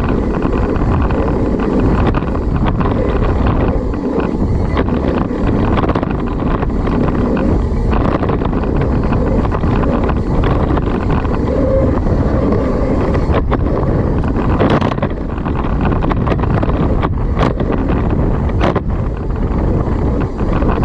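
Wind buffeting the microphone during a mountain-bike descent, a steady low rushing with tyre rumble on a dirt trail underneath, broken by a few sharp clacks from the bike over bumps, mostly in the second half.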